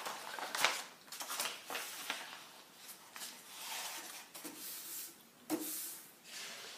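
Sheets of paper being handled and pressed together on a tabletop as they are glued: irregular soft rustles with a few light taps.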